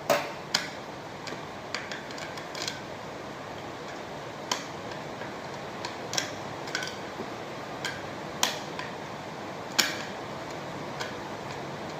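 Irregular metallic clicks and taps as a ceiling fan blade is fitted and screwed to the fan motor, over a steady hiss. The sharpest knocks come right at the start and about eight and a half and ten seconds in.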